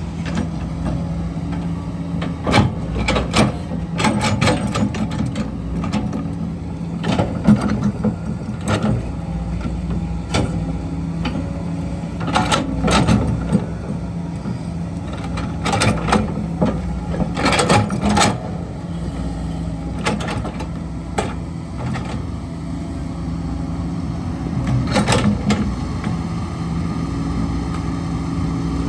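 Heavy diesel engine of the construction machinery running steadily, with repeated irregular knocks and clanks over it, in clusters.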